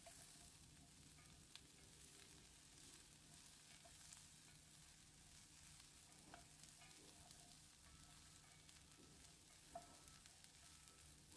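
Faint sizzle of carrots, peas and cauliflower frying in butter in a pan, with a few light clicks of a utensil stirring, the loudest about ten seconds in.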